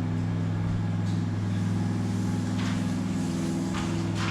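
A steady low engine hum, unchanging in pitch.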